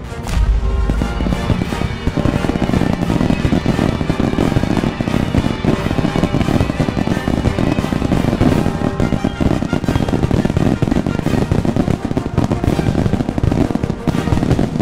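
Aerial fireworks going off in a rapid, continuous barrage of bangs and crackles, starting with a deep boom, over music playing with the show. The bursts come thick and fast from about two seconds in.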